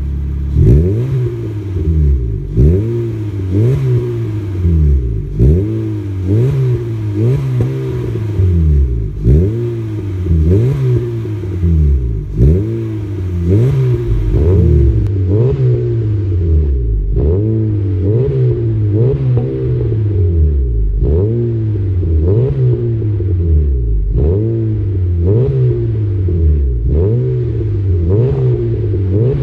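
Honda City's four-cylinder engine revved repeatedly in Park through an aftermarket catback exhaust with dual exits, each blip rising and falling in pitch, about one a second.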